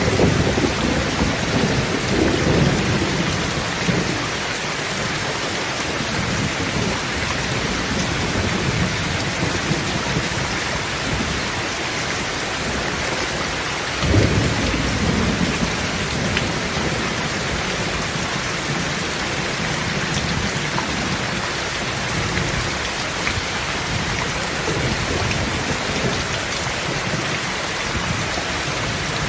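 Steady heavy rain falling, with rolling thunder rumbling in the first few seconds and a closer clap of thunder about halfway through that booms and rolls away.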